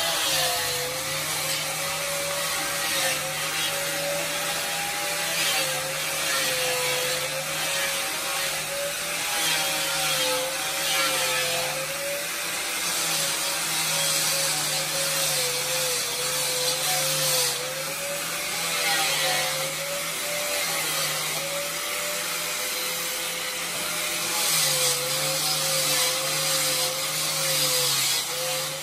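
Power tool running against wood, cutting or sanding. Its motor tone sags and recovers again and again as the tool bites into the wood.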